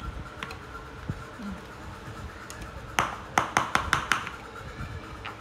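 A metal spoon clinking against a small metal bowl: a quick run of about seven sharp clinks in just over a second, a little past halfway through.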